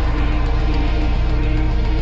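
Soundtrack music with held low notes laid over aerial footage.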